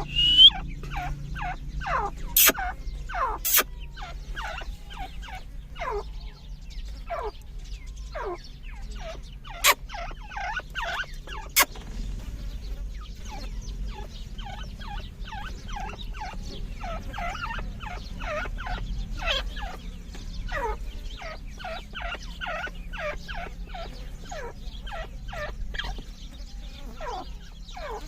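A family of grey francolins (dakhni teetar) calling: many short calls, each falling in pitch, scattered at first and then crowding into overlapping chatter from several birds. A few sharp clicks sound in the first half.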